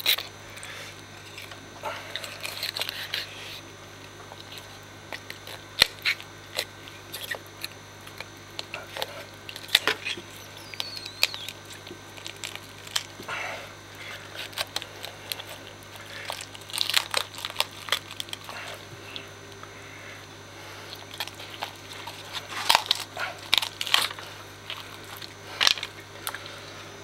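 Kitchen knife working on the head of an African sharptooth catfish: irregular clicks, crunches and short scrapes of the blade against jaw and skull bone as the head is opened up. A steady low hum runs underneath.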